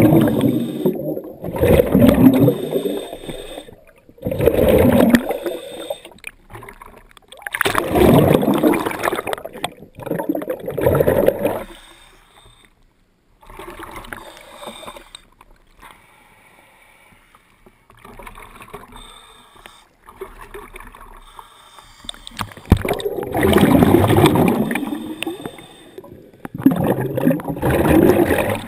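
Underwater: a diver's exhaled air bubbling out of the breathing regulator in loud bursts every two to three seconds, with a quieter stretch in the middle before the bursts resume.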